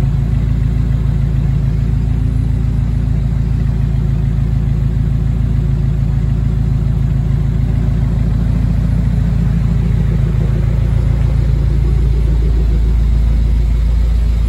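2022 Subaru WRX's turbocharged flat-four idling steadily through an ETS turbo-back exhaust, a deep, even burble out of the quad tips.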